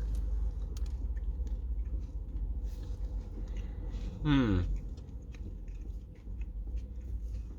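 A person chewing a mouthful of a breaded vegan chicken burger, with faint small mouth clicks. About halfway through comes a short voiced "mm" that falls in pitch. A steady low hum runs underneath.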